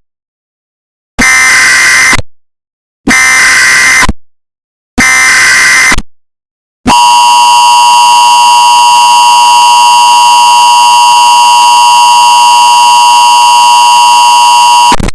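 Emergency Alert System signal: three short, screechy data bursts (the SAME header), about two seconds apart, then the harsh two-tone EAS attention signal held steady for about eight seconds before cutting off suddenly.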